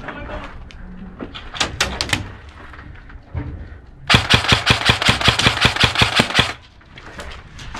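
Airsoft electric rifle firing a full-auto burst of about eight shots a second, lasting about two and a half seconds and starting about four seconds in. A few sharp single clicks come about two seconds in.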